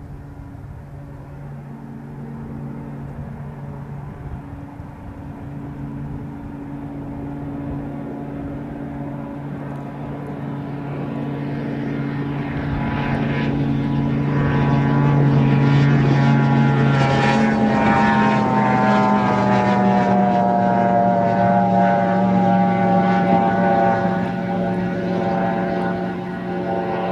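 A racing RIB's outboard motor running flat out, growing louder as the boat approaches. Its pitch drops as it passes close a little past halfway, then it runs on loud as it moves away.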